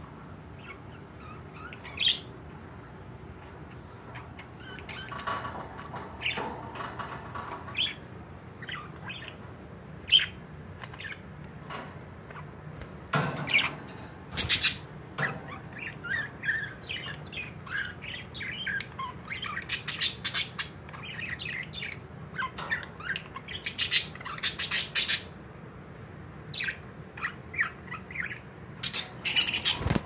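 Pet budgerigars (parakeets) chirping and chattering in irregular bursts, with sharp squawks bunched in a few busier spells, around the middle and near the end.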